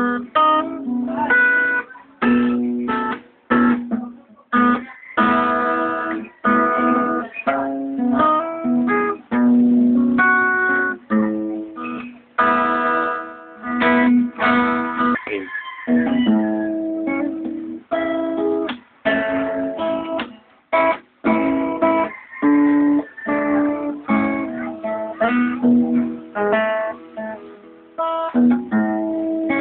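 Acoustic guitar strumming chords, the chords changing often and broken by frequent short stops.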